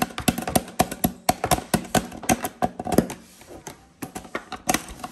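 Quick, sharp plastic clicks and taps as a doll is pressed step by step onto the step-activated floor of a toy playset, which pops the plastic flowers open. Several clicks a second for about three seconds, then fewer and more spread out.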